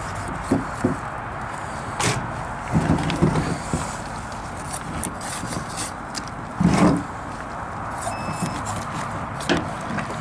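Scattered knocks, thuds and scrapes from a snapping turtle carcass being cut apart with a knife and its pieces handled on a plastic truck-bed liner, over a steady background hiss. The loudest thud comes about seven seconds in.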